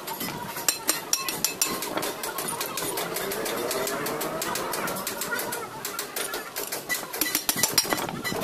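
Irregular metallic clicks and taps from hands and tools working on an old ceiling fan's metal motor casing, coming thickest about a second in and again near the end.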